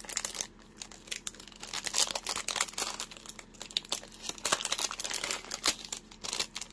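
Small clear plastic bead bag crinkling and rustling in the hands as it is opened, in irregular spells of crackles with short lulls.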